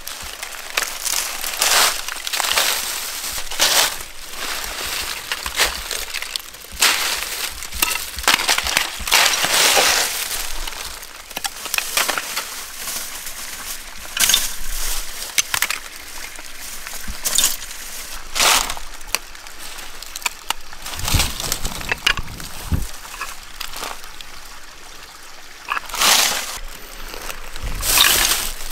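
Icicles being snapped off by hand and clinking together: a string of irregular sharp cracks and clinks of ice.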